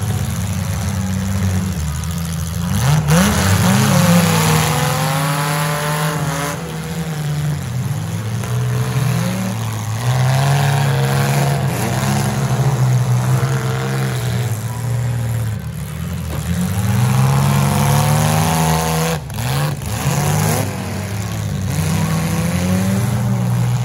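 Compact demolition derby cars' engines revving hard and rising and falling in pitch as they push against one another, with several sharp bangs of car bodies colliding.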